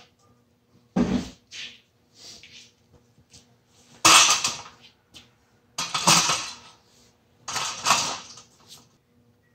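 Long black cherry board being handled, knocking and scraping against the lumber rack and other wood, then set down on sawhorses near the end. There are about four separate bursts of clunks and scrapes, the loudest about four seconds in.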